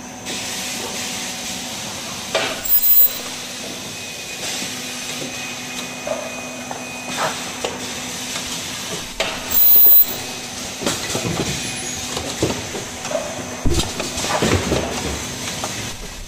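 Automatic cup-mask production line running: a steady machine hum with repeated clicks and knocks from the indexing conveyor and actuators. Brief loud high-pitched bursts come about every seven seconds.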